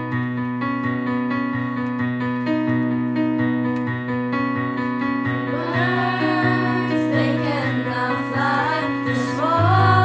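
Song with keyboard playing steady repeated chords; a singing voice comes in about halfway through, and the low notes grow heavier near the end.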